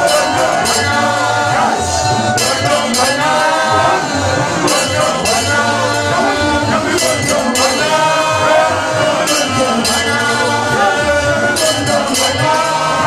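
A group of men singing a church song together through microphones. Under the voices run a steady bass line and rhythmic hand percussion with a shaker-like rattle.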